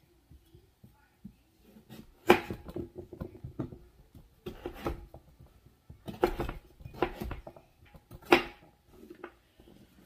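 Chef's knife chopping raw sweet potato on a wooden cutting board: groups of sharp knocks with short pauses, the loudest a little over two seconds in and again about eight seconds in.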